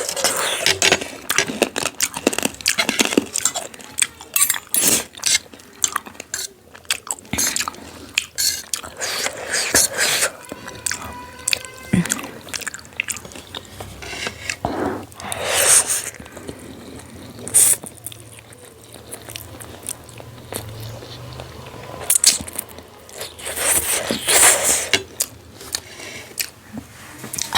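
Close-miked eating: wet chewing and biting of food, with many small mouth clicks and a few louder noisy swells about halfway through and near the end.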